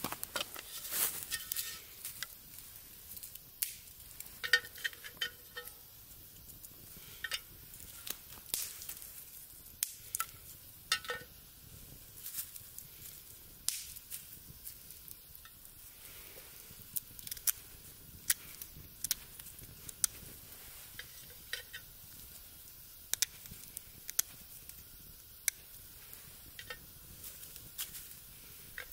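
Small wood fire crackling in a metal pan, with sharp pops scattered throughout. A few light metallic clinks ring out, about four to six seconds in and again about eleven seconds in, as small metal tins are handled.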